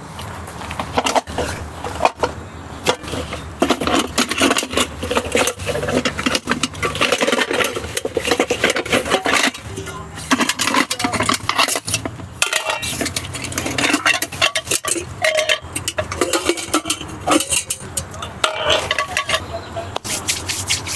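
Utensils clinking and scraping against cookware in a steady, busy run of small knocks and scrapes, with a few short metallic rings.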